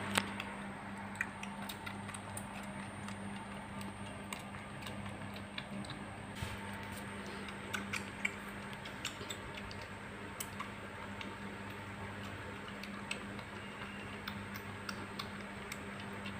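Kitten suckling milk from a feeding bottle: faint, irregular small clicks and smacks from its mouth on the teat, over a steady low hum.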